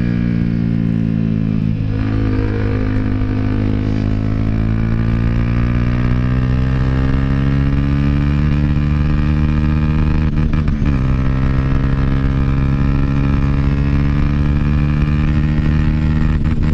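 Dafra Next 250's single-cylinder engine through a Jeskap GP Carbom aftermarket exhaust, the bike accelerating under way. The pitch climbs steadily, drops with an upshift about ten seconds in, then climbs again until another shift at the very end.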